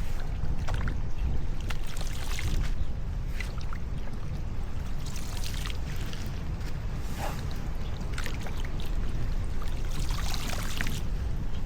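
Floodwater splashing and trickling, with irregular small splashes over a steady low rumble of wind on the microphone.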